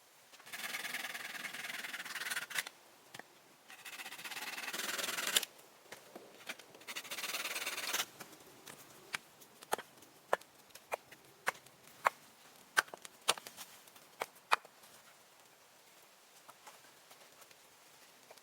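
Hand work on wood: three long rasping strokes, each lasting a second or two, then a string of sharp knocks roughly two a second.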